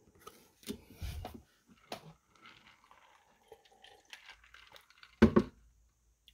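Trading cards being handled on a wooden desk: soft sliding, tapping and rustling as a card is laid down and the next picked up, with one louder short thump about five seconds in.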